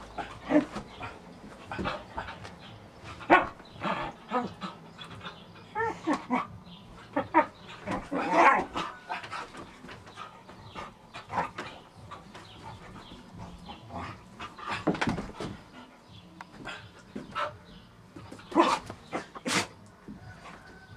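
Small black-and-white dog barking in a play fight with a person's hands, in short irregular bursts.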